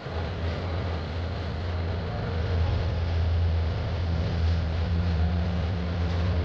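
A steady low engine drone under a rushing noise, getting slightly louder about two seconds in.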